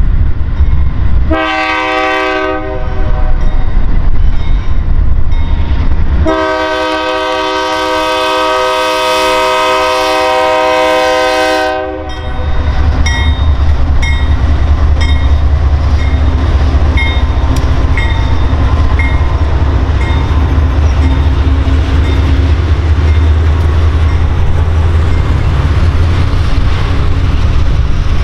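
BNSF diesel freight locomotives sounding a multi-note air horn: a short blast, then a long one of about five seconds. After the horn stops, the locomotives' heavy low engine rumble and the freight cars rolling by take over, with a crossing bell ringing a little under twice a second.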